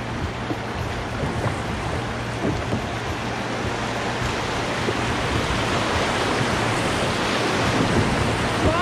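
Whitewater rapids rushing around a canoe's bow, a steady roar of water that gets louder as the canoe runs into the rapids. A brief rising whoop sounds right at the end.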